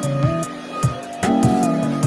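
Background music: a soft tune with a melody line over held chords and a steady beat.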